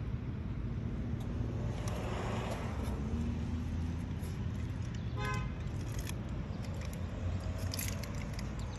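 Steady low outdoor rumble with one short car-horn toot about five seconds in.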